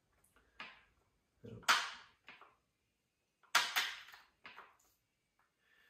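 A few sharp plastic clicks and knocks from the controls of a Husqvarna 272XP chainsaw as its choke and throttle lock are set before a pull start. Two louder ones come about two seconds apart.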